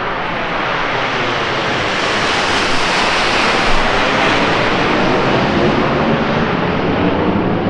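Formation of Snowbirds CT-114 Tutor jets passing low overhead: a loud jet rush that swells to its peak about three seconds in and then slowly fades.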